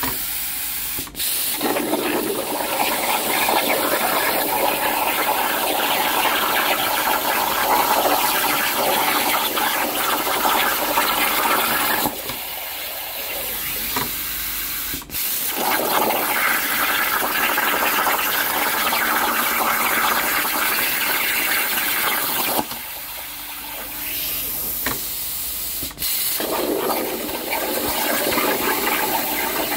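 CNC plasma cutter cutting metal plate: a loud, steady rushing hiss of the arc and air. It drops to a quieter hiss twice, about 12 and 23 seconds in, and cuts out for an instant about a second in, about 15 seconds in and about 26 seconds in before carrying on.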